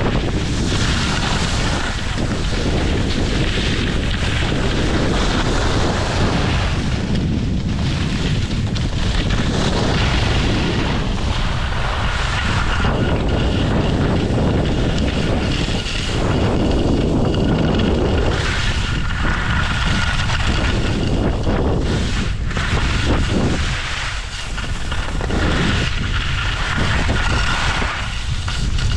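Wind rushing over the microphone of a camera carried by a downhill skier, with skis scraping and hissing over packed snow. The noise is continuous and swells and eases through the turns.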